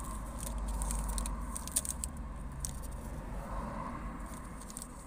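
Car interior while stopped in traffic: a steady low engine rumble, with cross traffic passing and scattered small irregular clicks and rattles.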